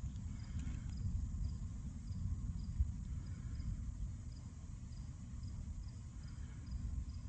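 Insects chirping in an even rhythm, about two short high chirps a second, over a louder, uneven low rumble.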